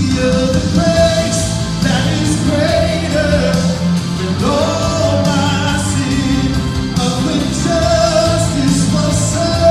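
A man singing a Christian worship song live into a handheld microphone, over steady instrumental backing.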